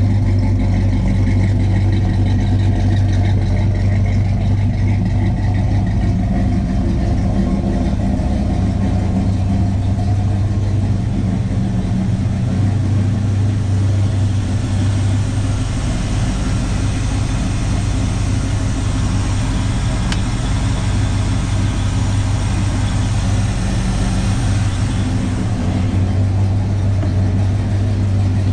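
A 1968 Pontiac GTO's rebuilt 400 V8 running steadily on its first start in about six months. It has no choke, so it runs cold-blooded.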